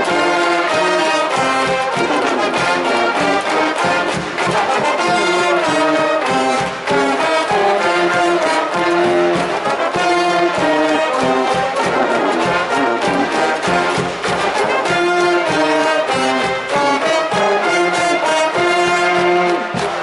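Japanese high-school baseball cheering brass band in the stands playing a cheering tune, brass over a regular drumbeat.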